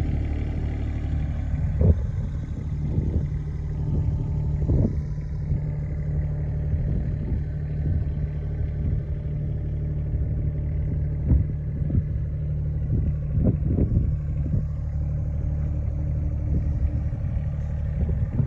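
Takeuchi TB210R mini excavator's diesel engine running steadily, with scattered clanks and knocks over it.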